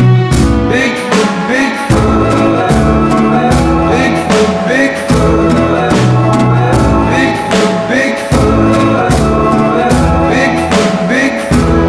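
Music: a song with a steady drum beat.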